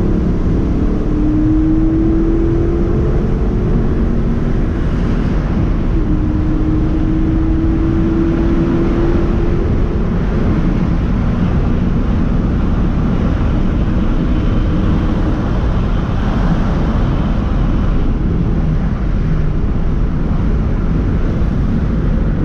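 A car driving at a steady pace: a constant engine drone under road noise, the engine note creeping slowly upward over the first ten seconds or so.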